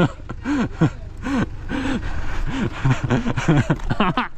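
A voice making a run of short wordless calls, each rising and falling in pitch, about two a second.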